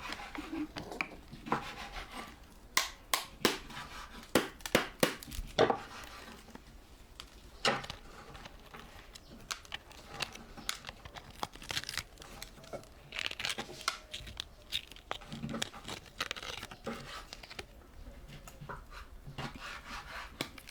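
Rustling and crinkling with a run of sharp clicks and knocks, thickest about three to six seconds in.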